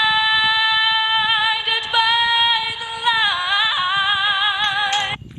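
Female solo voice singing long held notes with vibrato, moving to a new note about three seconds in and cutting off suddenly near the end.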